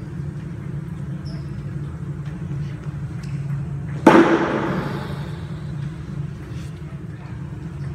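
A single sudden loud knock about four seconds in, ringing on for about a second in a large echoing sports hall, over a steady low hum.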